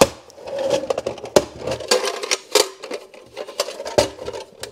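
An old Huot steel drill-bit index case being handled and pried open: a rapid run of metallic clicks and knocks, with the sheet-steel case ringing between them.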